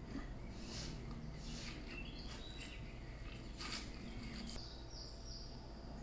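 Woodland birds calling, with a high, thin whistled call near the end, over a steady low background hum and a few short rustling crackles.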